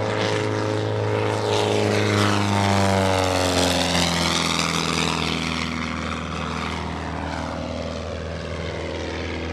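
Christen Eagle aerobatic biplane's 200-horsepower Lycoming IO-360 engine and propeller at full power on a low, fast pass. The pitch drops as it goes by about three seconds in, then the plane pulls up and away, a little quieter.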